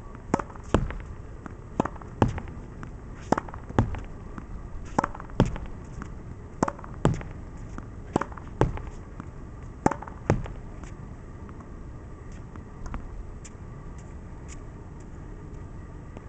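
Tennis ball rallied against a backboard wall: sharp hits in pairs, the racket striking the ball and the ball smacking the wall, about every second and a half. The hitting stops about ten seconds in.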